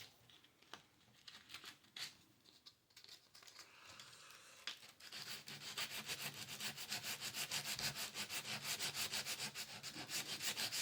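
Sandpaper rubbing on a lithium pouch cell's aluminum tab, scraping it bright to take off the oxide before soldering. A few scattered strokes at first, then from about halfway a fast, steady back-and-forth sanding rhythm.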